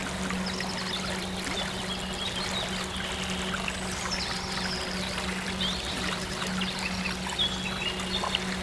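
Trickling stream water, with many short high chirps and whistles over a steady low drone.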